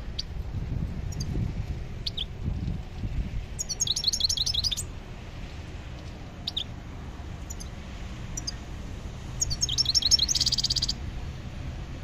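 Small caged songbirds chirping, with two bursts of quick, high twittering, about four seconds in and again near ten seconds, and single chirps in between.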